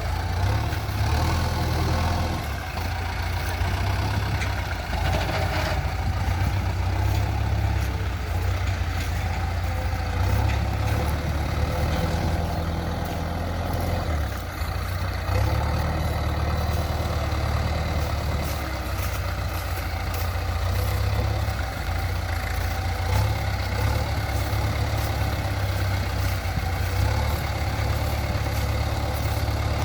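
Diesel engine of a JCB 3DX backhoe loader running steadily, its low note shifting slightly now and then.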